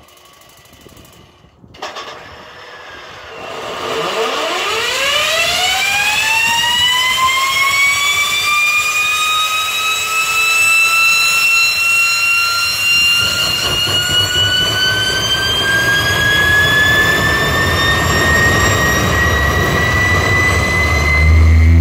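Jet turbine engine on a jet-powered fire truck starting up: after a click about two seconds in, a whine sweeps steeply upward and then keeps climbing slowly as the turbine spools up. A rushing roar builds under it from about halfway as the engine runs with flame coming from its exhaust.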